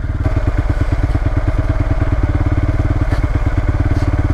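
Motorcycle engine running steadily at low revs, its exhaust pulsing evenly and rapidly.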